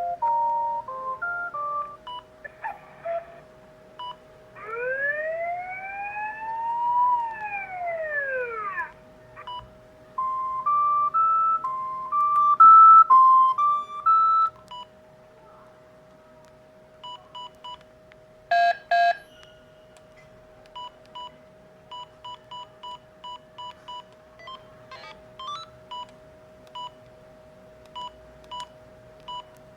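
Panasonic GD75 mobile phone playing its ringtones through its small speaker: a tune of stepped beeps, a tone that glides up and back down like a siren, another short beeped tune, then scattered short beeps. A steady hum runs underneath.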